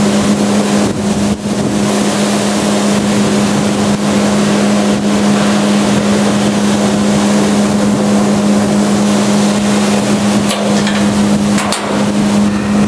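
A machine running steadily: a loud, even drone with a constant low hum, and a few faint clicks near the end.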